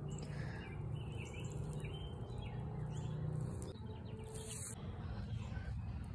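Outdoor evening ambience with birds chirping on and off over a low steady hum, and a brief rustling hiss about four and a half seconds in.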